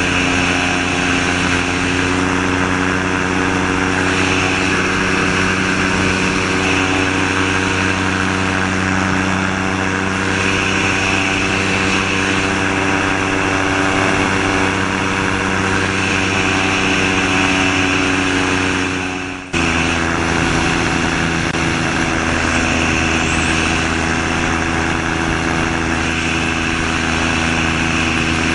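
A gyrocopter's Subaru EA-81 flat-four engine, driving the pusher propeller through an NSI gearbox, holding a steady cruise drone with wind rush. About two-thirds of the way through the sound dips for an instant and comes back a little lower in pitch.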